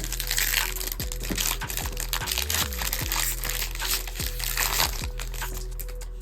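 Crinkling of a foil booster-pack wrapper being handled and opened, in repeated bursts, over background music with a steady beat.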